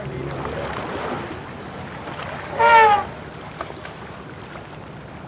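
Steady wind-like outdoor noise, with one short, loud, high-pitched call that dips slightly in pitch about two and a half seconds in.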